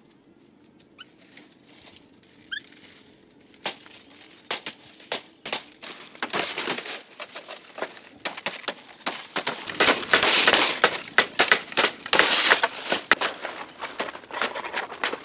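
Dry fan palm fronds rustling and crackling as they are pulled down and cut, a dense run of crunching clicks that starts a few seconds in and is loudest a little past the middle.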